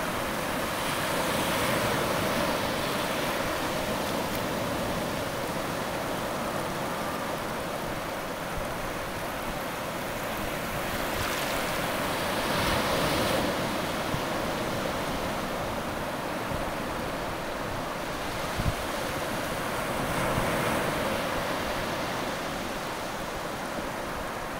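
Shallow swash washing over sand at the water's edge: a steady rush of water that swells several times as waves run in and ease back, with one brief knock about three-quarters of the way through.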